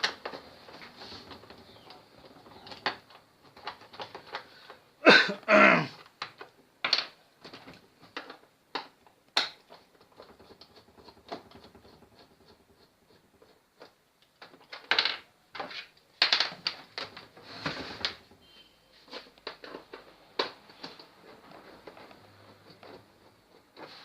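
Irregular clicks, taps and knocks of a screwdriver and hands working the screws and plastic back cover of a CRT TV, with a louder scrape about five seconds in.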